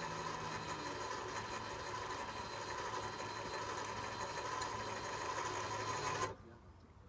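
An engine idling steadily with a constant high whine over it, switched off abruptly about six seconds in.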